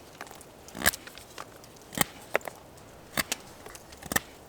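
Knife carving a point on a wooden stick: a handful of short, sharp cuts spaced irregularly, about five in all, over a quiet background.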